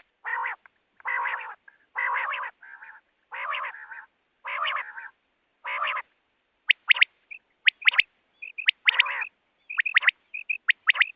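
Recorded quail calls: a series of about six harsh, raspy calls roughly one a second, then from about seven seconds in, sharp clipped notes in quick pairs and triplets mixed with short high chirps.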